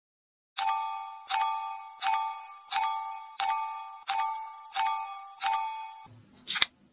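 A bright bell-like chime sound effect struck eight times at an even pace, about three every two seconds, each note ringing out and fading before the next. It stops about six seconds in, followed by a faint short knock.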